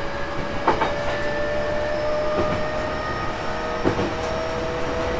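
Interior running noise of a JR East E233-series electric train's motor car under way, with its air conditioning on. A thin motor whine slowly rises in pitch over the steady rolling noise, and the wheels click over rail joints three times, about every second and a half.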